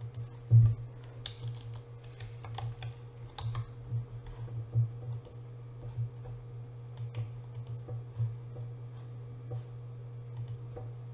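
Computer keyboard keys and mouse clicks, scattered and irregular, over a steady low hum.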